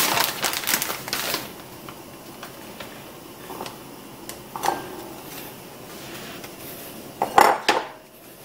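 Plastic zip-top bag rustling and crinkling as floured chicken pieces are pulled out by hand into a wire-mesh strainer, with scattered light handling clicks and a louder short clatter near the end.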